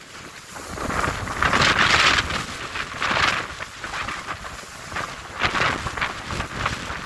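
Strong wind gusting, surging and easing every second or two, with wind buffeting the microphone and a low rumble underneath.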